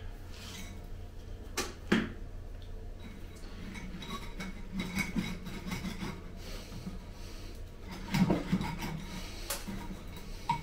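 Handling noises of repotting a tree: a pot, substrate and tools being moved, with two sharp knocks about two seconds in and a louder clatter around eight seconds in.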